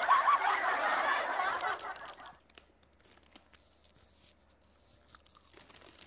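Giggling laughter for about the first two seconds, breaking off sharply. Then faint crunching and crinkling as a small snack is bitten into and eaten.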